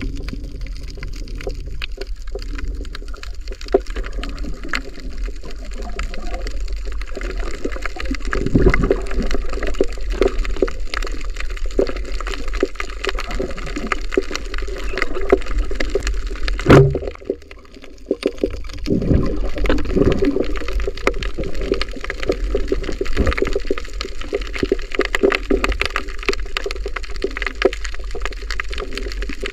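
Underwater water noise over a coral reef: a steady swishing and bubbling wash with a low rumble and dense crackling clicks throughout. A single loud knock comes a little past halfway, followed by a brief hush.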